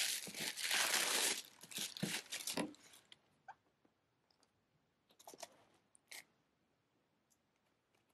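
Tissue paper crinkling and rustling as sneakers are lifted out of a paper-lined shoebox. It is loudest for the first second and a half, followed by several shorter rustles, then a few brief crackles and light taps around five to six seconds in.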